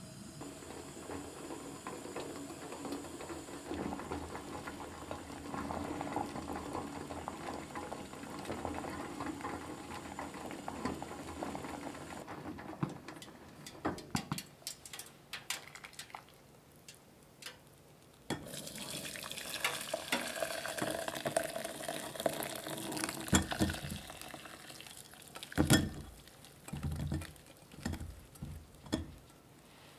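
Sweet potato pieces simmering in a pot of water with a steady bubbling. After a few light clicks, the hot cooking water is poured through a mesh strainer into a glass bowl with a rushing splash. The potato chunks then drop into the strainer with a run of soft thumps and knocks, the loudest a little before the end.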